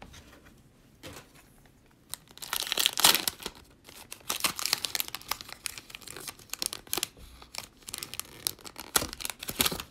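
Shiny foil wrapper of a 2020 Panini Prizm football card pack being torn open and crinkled by hand. The loudest tearing comes about two and a half to three seconds in, followed by scattered crinkling of the wrapper.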